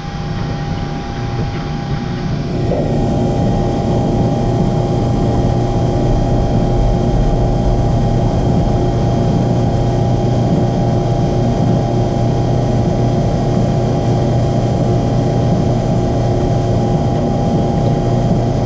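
Drill press running with its bit boring a hole through a small quarter-inch square iron bar: a steady motor hum with cutting noise, getting louder about three seconds in and then holding steady.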